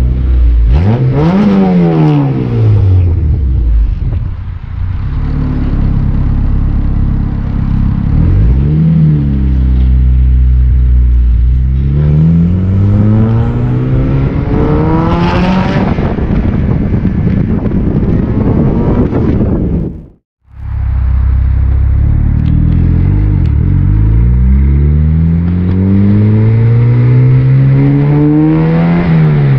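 Four-cylinder Honda S2000 engine in a swapped Datsun 240Z pulling hard through the gears: the pitch climbs, then drops at each upshift, over several runs. The sound cuts out for a moment about two-thirds of the way in.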